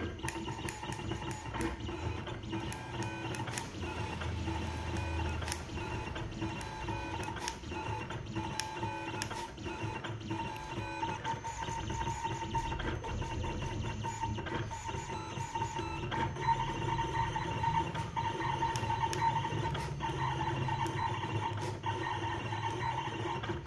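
SkyCut cutting plotter running a cut: its motors whir and whine as the blade carriage and material move, with the pitch stepping as the moves change, and many short clicks throughout.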